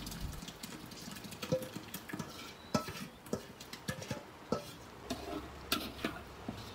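Metal spoon scraping and tapping against a stainless-steel bowl as thick blended curry paste is spooned out into a pot of coconut-cream curry, then stirred in: a run of irregular clicks and soft wet scrapes.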